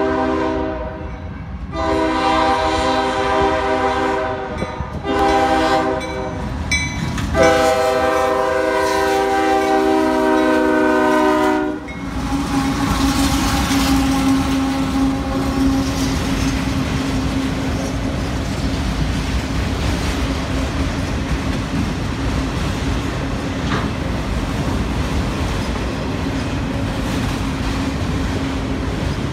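CSX diesel freight locomotive sounding its multi-chime air horn in three blasts for a road grade crossing, the last and longest ending about twelve seconds in. Then the locomotives and freight cars roll past with a steady rumble and wheel clatter.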